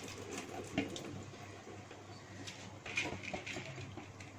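Hot broth bubbling in a wide pan as soaked rice is tipped in from a plastic bowl, with light liquid sloshing and scattered small clicks, the sharpest about a second in and again near three seconds, over a low steady hum.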